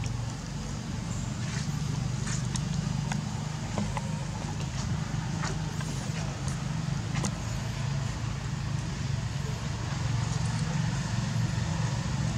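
A steady low engine hum, with faint scattered clicks.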